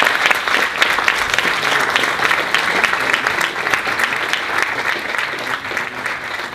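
Audience applauding, many hands clapping steadily and fading slowly near the end.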